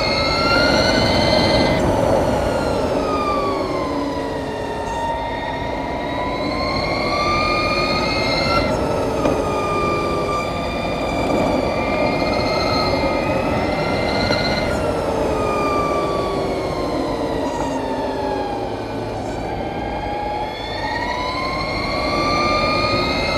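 Harley-Davidson LiveWire electric motorcycle's drivetrain whine at speed. It is a high, siren-like tone whose pitch slides up and down as the bike speeds up and slows, dipping low shortly before the end and climbing again. Wind and tyre rush sit beneath it.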